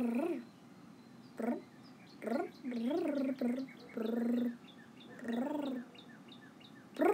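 A voice making short warbling creature noises, each call rising and falling in pitch and lasting under a second, several in a row. Small birds chirp over and over in the background.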